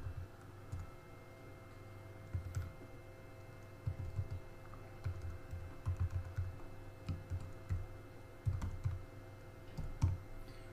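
Typing on a computer keyboard: short runs of keystrokes with pauses between them, each run heard as a cluster of clicks with dull low thuds.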